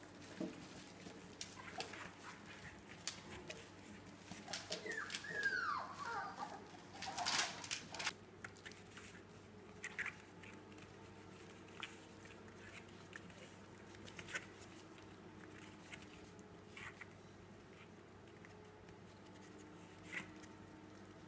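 A litter of four-week-old puppies playing and tussling over toys: scuffling and scattered clicks of paws and claws, with one short falling puppy whine about five seconds in. After about eight seconds the activity thins to a few isolated clicks.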